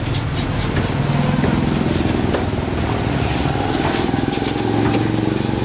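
A small engine running steadily, with a plastic carrier bag crinkling as it is handled.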